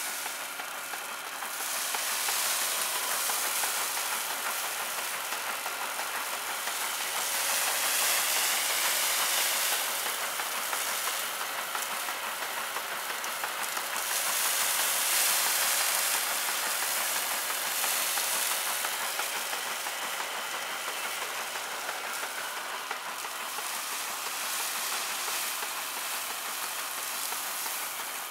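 Old wooden threshing machine running, its drum whirring and rasping as sheaves of grain are fed into it. The noise swells and eases every few seconds as the straw goes through.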